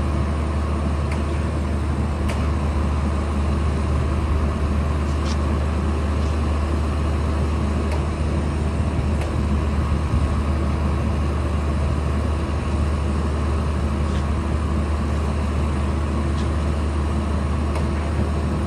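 Steady low mechanical drone of a rubber-tyred gantry crane's drive and power unit running as it holds a suspended load, with a few faint ticks.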